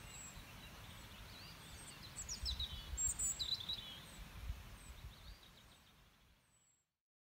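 A songbird calling in quick, high chirps over a low background rumble, the sound fading out to silence near the end.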